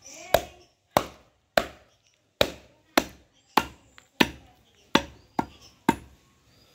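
Heavy butcher's cleaver chopping through mutton ribs on a wooden log block: about ten sharp chops at a steady pace, a little under two a second.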